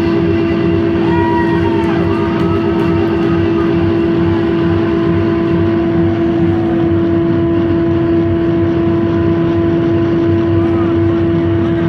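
Loud, steady drone of electric guitar amplifier feedback: one held tone over a thick low rumble, with a few shouts from the crowd.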